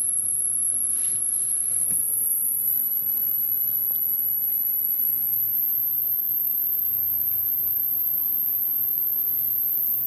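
Hearing-test pure tone, very high-pitched, stepping up in pitch about three times, near the top of the range where ageing ears stop hearing it.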